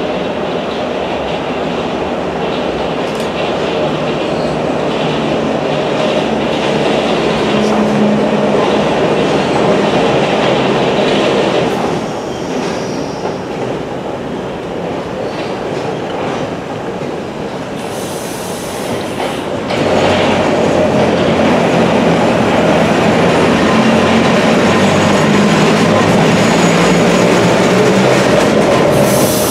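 London Underground battery-electric locomotives running in along the platform track: steady rail and wheel noise with a low hum. A brief high squeal comes about two-thirds through, then the sound steps up and stays louder as the locomotives draw close.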